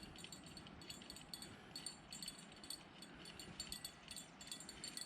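Small bite-alarm bell clipped to a fishing rod jingling faintly and irregularly, several light tinkles a second, as a hooked carp tugs on the line.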